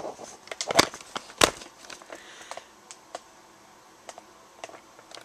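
Camera being handled and set down: a few sharp knocks in the first second and a half, then scattered faint clicks.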